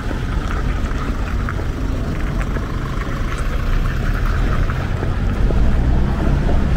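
Outdoor city street ambience: a steady low rumble with a lighter hiss above it, growing a little louder about five seconds in.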